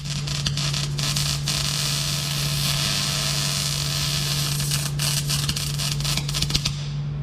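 Electric arc welding on steel tubes: the arc gives a crackling hiss, steadier through the middle and more broken near the start and end, over a constant low hum.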